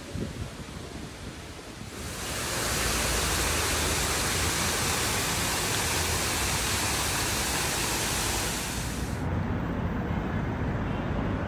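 Steady rushing of water from a small waterfall spilling into a pond. It sets in suddenly about two seconds in after a quieter stretch of outdoor air, and cuts off abruptly about nine seconds in, leaving a lower, duller background hum.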